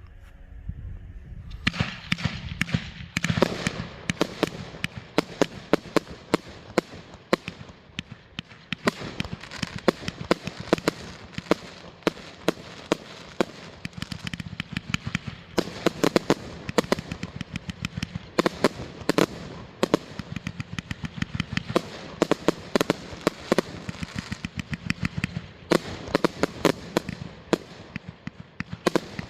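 A 180-shot consumer firework cake, Insane, firing a rapid string of shots with sharp bangs and crackling bursts. It starts about two seconds in and keeps going in dense volleys without a break.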